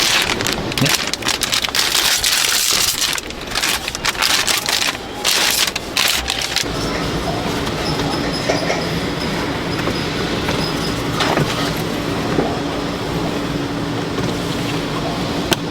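Machinery on a car cabin air filter production line: rapid clattering and hissing for about six seconds, then a steady machine hum with a faint high whine and a few sharp clicks.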